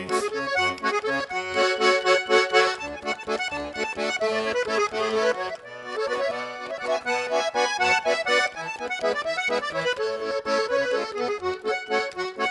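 Garmon (Russian button accordion) playing an instrumental interlude between sung verses: a quick melody of short notes over regularly pulsing bass and chords.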